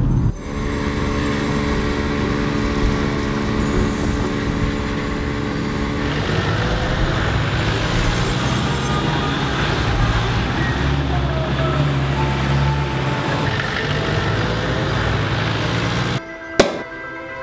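Airliner cabin drone with a steady hum for the first few seconds, then street traffic noise of motor vehicles. Near the end the sound cuts to something quieter and a glass clinks once.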